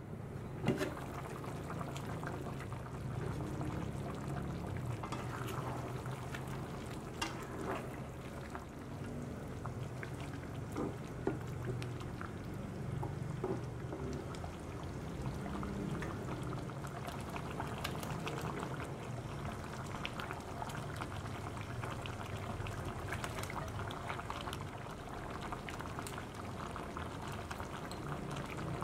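Chicken caldereta sauce with coconut milk boiling in a stainless steel pan: steady bubbling, with a few light clicks and knocks, the loudest about a second in.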